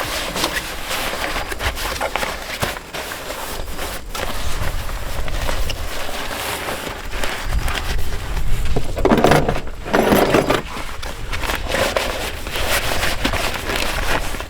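Camping gear being handled and packed away: irregular rustling, clicks and clatter with footsteps, and two louder rustles about nine and ten seconds in.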